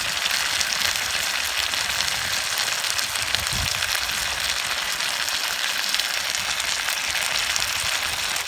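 Salmon and holy basil stir-frying in a hot pan: a steady sizzle flecked with fine crackles.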